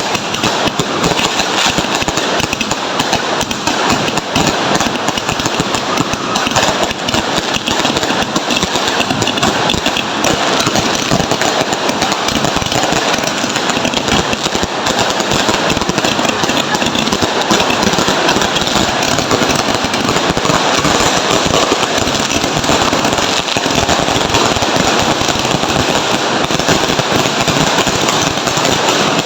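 Fireworks and firecrackers going off in a dense, unbroken crackle of rapid small bangs.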